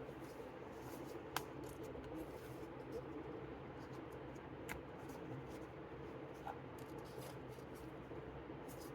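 Faint handling of a lift-the-flap book: paper flaps lifted and rustling, with a couple of light clicks, over a low room hum.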